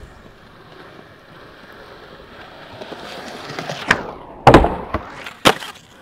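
Skateboard wheels rolling on concrete, getting louder as the board picks up speed. Just before 4 seconds in comes a sharp clack as the board pops onto a ledge, then the loudest sound, the trucks grinding along the ledge edge, and a sharp crack about half a second later as the board lands back on the ground and rolls on.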